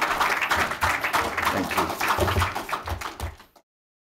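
Audience applauding, cutting out about three and a half seconds in.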